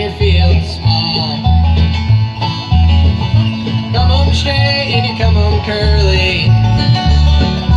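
Acoustic band playing a country/bluegrass tune: plucked strings over a steady, evenly pulsing bass line, with a bending melodic lead above.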